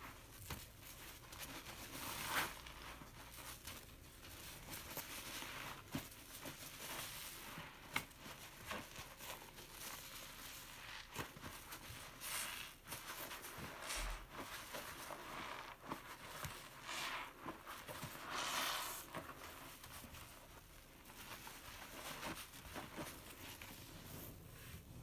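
A soap-soaked sponge squeezed and kneaded by hand in thick dish-detergent foam: wet squishing of foam and sponge in irregular strokes, with small clicks.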